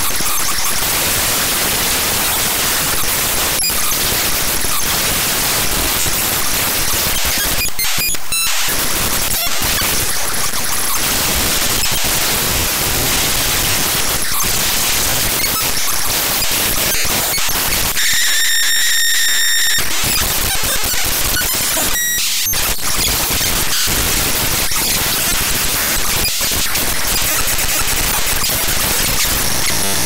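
Raw data of the SpeedFan program played back as unsigned 8-bit audio: a very unpleasant, loud, harsh static-like noise whose texture keeps shifting. About eighteen seconds in, a high buzzing tone takes over for about two seconds.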